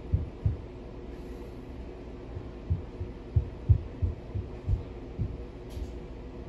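Irregular soft low thumps, about a dozen, over a steady low hum, with a short, faint rustle near the end.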